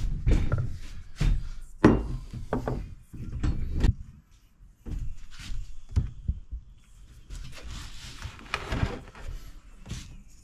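Handling sounds as the domed plastic cover of a jet ski trim motor housing is worked loose, lifted off and set down on a wooden workbench: a string of knocks and clicks with some rubbing between, the sharpest knock about two seconds in.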